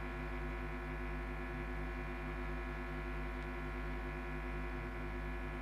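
Steady electrical hum from the microphone's sound system: a low buzz of several steady pitches that does not change.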